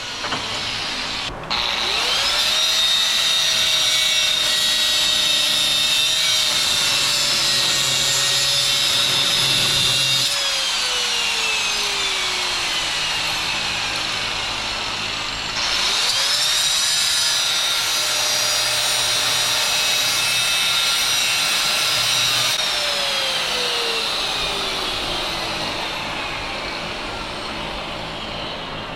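Angle grinder cutting a slit in a stuck part on a UTV wheel hub. It starts up about a second and a half in, runs steadily under load, winds down around ten seconds in, starts again a few seconds later and slowly winds down over the last several seconds.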